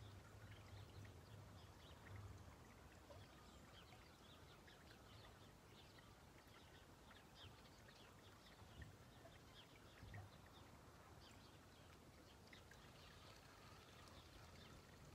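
Near silence: faint outdoor ambience with scattered distant bird chirps throughout.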